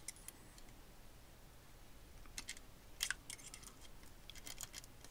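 Faint, scattered metallic clicks and scrapes of a steel feeler gauge blade being tried at a valve clearance on a BMW K1600 cylinder head, the loudest about three seconds in. The 0.23 mm blade will not go in, so the clearance is in tolerance.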